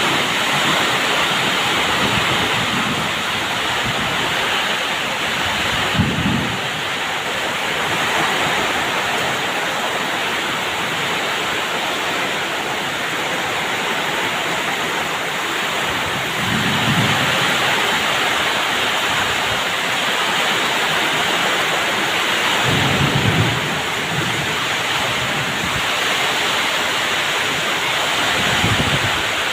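Heavy rain pouring steadily in strong wind during a thunderstorm, with several brief low rumbles standing out at intervals.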